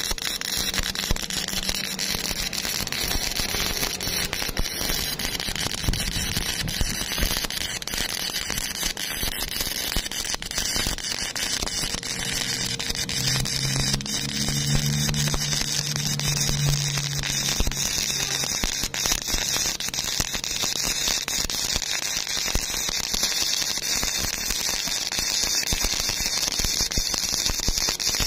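Stick welding arc crackling and sizzling steadily while a horizontal fillet weld is run on rusty steel plate, with a constant stream of tiny spatter pops.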